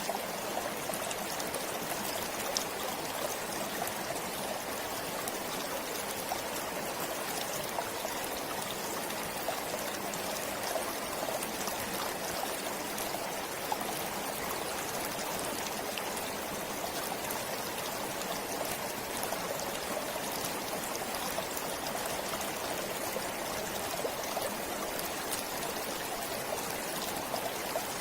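Forest stream flowing steadily, a continuous rush of water with fine trickling and small splashes.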